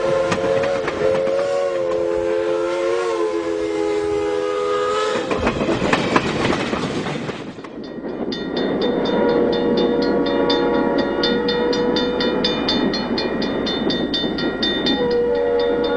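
A train's horn sounds a held, multi-note chord for about five seconds. After a cut, a train runs with a fast, even clicking and a steady tone.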